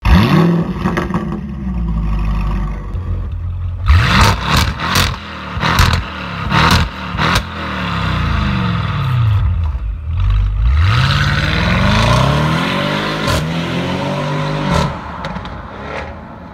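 Audi RS6 C7's twin-turbo V8 through an aftermarket sport exhaust, running steadily, then blipped in several sharp revs with sharp cracks between them about four seconds in. From about ten seconds in it pulls up in one long rising run as the car accelerates away, fading near the end.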